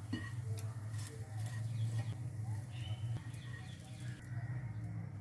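Pigeons cooing: a low, repeated coo in stretches of about a second, with a few faint clicks.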